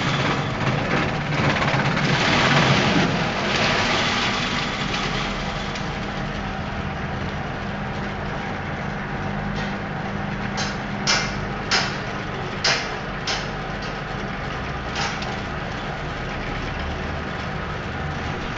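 Banana-stem chopping machine running, louder and rougher for the first five seconds, then running steadily. About halfway through come about six sharp knocks.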